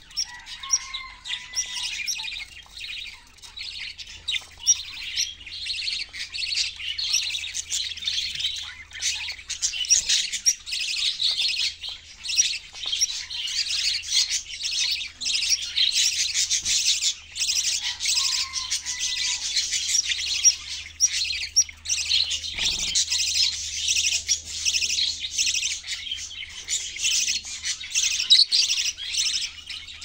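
Budgerigars chattering continuously: a dense, unbroken stream of high chirps.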